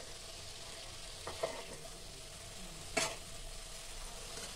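Soya chilli sizzling in a kadai on a lit gas burner while a steel spoon scoops it onto a steel plate. A steady frying hiss, with a light clink about a second and a half in and a sharper clink of spoon on metal about three seconds in.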